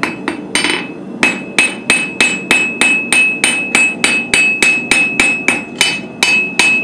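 Blacksmith's hammer striking hot iron on an anvil in a steady rhythm of about three blows a second, each blow with a bright anvil ring, after a brief pause about a second in.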